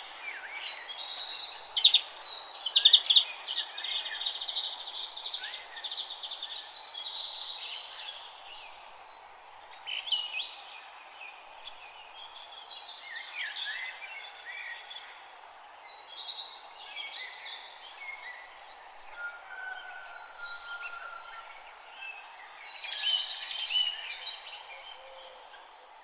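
Dawn chorus of several songbirds chirping and trilling, with the calls overlapping, over a steady background hiss. The loudest bursts of song come a couple of seconds in and again near the end.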